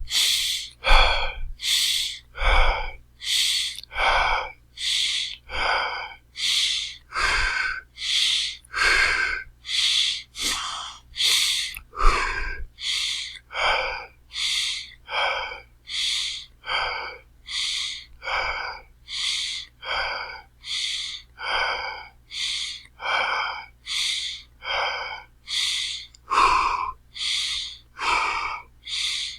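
A person breathing heavily and fast, in and out breaths alternating in an even rhythm, about one full breath every second and a half.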